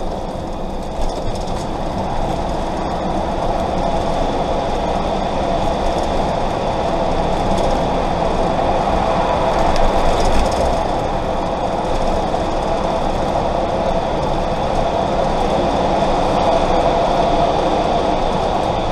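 Camper van's engine and tyre noise heard from inside the cab while driving through a road tunnel: a steady rumble that grows a little louder in the first few seconds.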